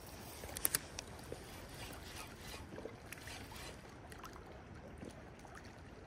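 River water flowing and lapping, with two sharp clicks a little under a second in and scattered faint ticks after.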